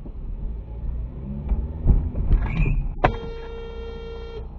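Car horn sounding one steady honk of about a second and a half, about three seconds in, over the low rumble of a car idling in traffic.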